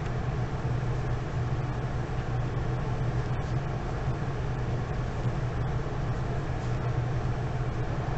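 Steady background hum and hiss: a constant low hum under an even hiss, with no clear events.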